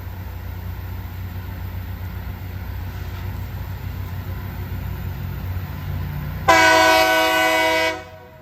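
Loram rail grinder train's diesel engines running with a steady low rumble as it moves slowly along the track. Near the end comes one loud train-horn blast of about a second and a half, which cuts off sharply.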